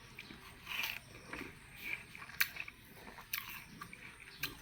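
A person biting and chewing juicy watermelon close to the microphone: irregular crisp bites and wet mouth smacks, several to a second.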